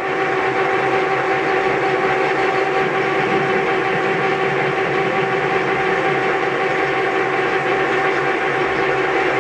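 Metal lathe running with its three-jaw chuck spinning, while the tool faces off the end of a shaft section. It makes a steady hum with a steady whine on top.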